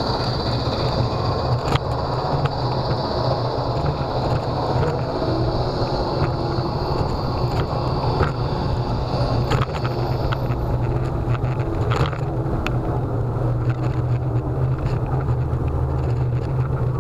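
Ride noise of a Solowheel self-balancing electric unicycle rolling along city pavement: a steady low rumble with a few knocks over bumps, and a high steady whine that stops about ten seconds in.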